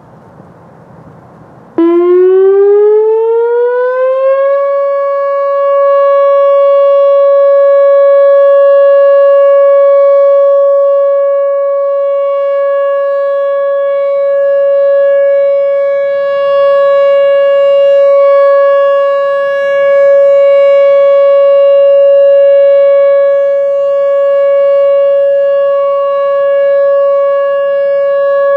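Whelen Vortex R4 electronic rotating siren starting up about two seconds in, its tone rising for a couple of seconds and then holding a steady 560 Hz alert tone, swelling and dipping as the four-horn head turns. The tone carries a shaky vibrating quality from the siren itself, which the uploader puts down to the screen vibrating or one of the drivers wearing out.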